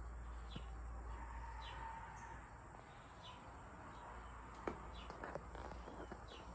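Faint outdoor ambience with a bird chirping about once a second, short falling chirps, and a few light clicks a little past the middle.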